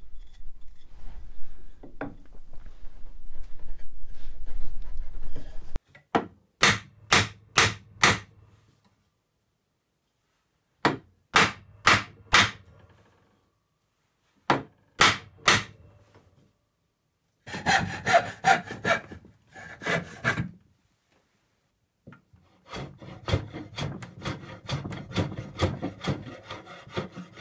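A steady running noise stops abruptly about six seconds in. Then a wooden mallet strikes a glued hardwood dowel into its hole in groups of sharp knocks: four, then three, then three. The piece ends with a handsaw rasping back and forth in quick, even strokes, cutting the protruding dowel flush with the wood.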